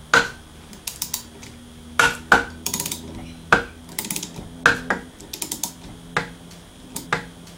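Ratcheting spanner clicking as it is worked back and forth on a puller bolt, pressing a mini lathe's spindle out of its headstock housing: a sharp click about every second or so, with short runs of rapid ticks between them.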